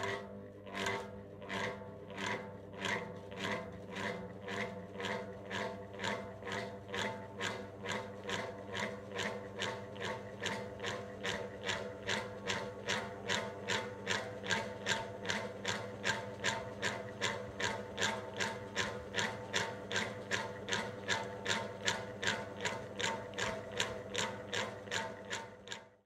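Ceiling fan creaking in a steady rhythm as it turns, over a low motor hum, the creaks quickening as the fan gathers speed. The uploader takes it for fan bearing noise.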